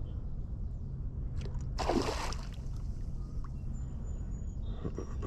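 Water sloshing and splashing as someone wades, with one louder splash about two seconds in and a smaller one near the end, over a steady low rumble.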